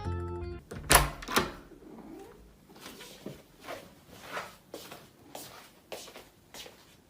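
A series of knocks or taps: two loud ones about a second in, then softer ones about two a second, fading away. The tail of some background music cuts off at the start.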